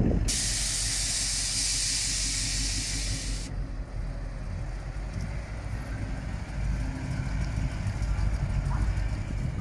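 Low rumble of car engines running at a car meet, with a steady hiss that starts suddenly just after the start and cuts off about three seconds later.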